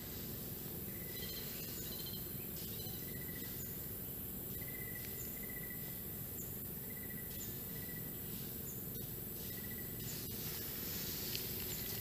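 Forest ambience: a steady high-pitched insect drone, with short call notes repeated roughly once a second over a low background rumble.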